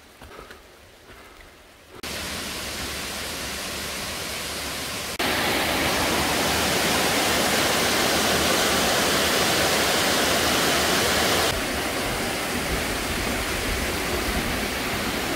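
Loud rushing of water gushing out of the cave and falling down the hillside in a cascade, a steady noise that comes in suddenly about two seconds in, grows louder around five seconds and eases a little near twelve.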